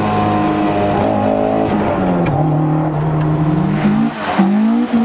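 Toyota AE86's 4A-GE 20-valve blacktop four-cylinder engine running hard at high revs under acceleration. The pitch dips a little past two seconds in, holds, then climbs again near the end.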